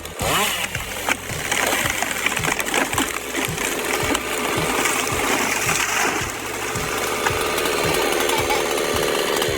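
Machinery running steadily with rapid, irregular clattering and knocking.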